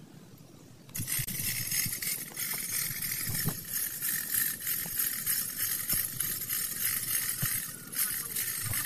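Stick arc welding: the arc strikes about a second in and then burns with a steady crackling hiss.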